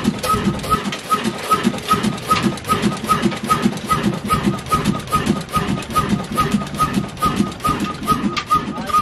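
Old single-cylinder black diesel flywheel engine running steadily just after a fire-assisted cold start, beating about four times a second with a metallic ping on each beat.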